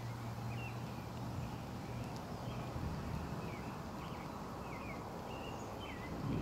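Songbirds chirping, short slurred notes repeated every half second or so, over a low steady rumble that is stronger in the first half.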